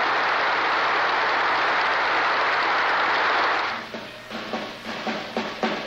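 Large crowd applauding, a steady dense clatter of clapping. About four seconds in it fades out and music with drums begins.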